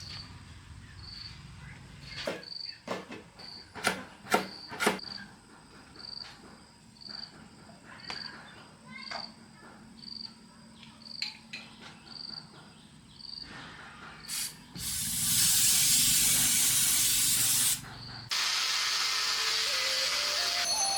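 A high chirp repeating about once a second, like a cricket, with a handful of sharp knocks in the first few seconds. Near the end comes a loud hiss that lasts about three seconds and cuts off suddenly, followed by a steadier, duller rushing noise.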